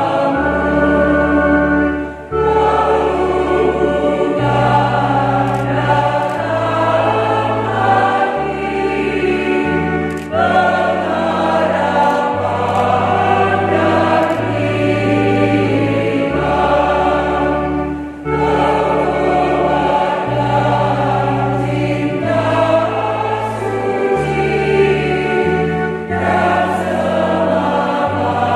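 Choir singing a hymn to an electronic organ (Yamaha Electone Stagea), whose held bass notes change every second or two. The sound drops briefly between phrases about every eight seconds.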